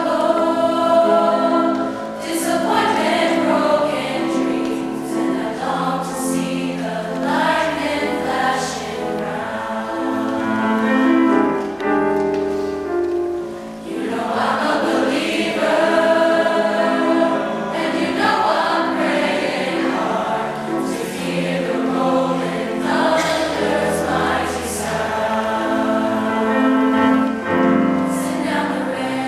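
Mixed high-school choir of male and female voices singing together.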